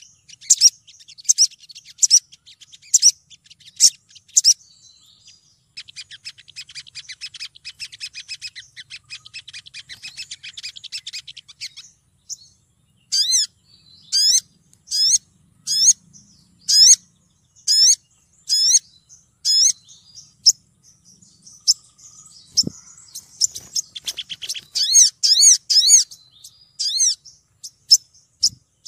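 Female olive-backed sunbird calling: sharp, high downslurred notes about once a second, breaking into a rapid buzzy trill for several seconds, then more spaced calls and another quick twitter near the end. It is a female calling to draw in males.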